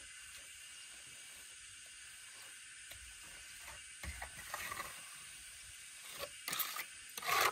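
Steel plastering trowel spreading and scraping cement render onto a concrete block wall in short, irregular strokes, loudest near the end.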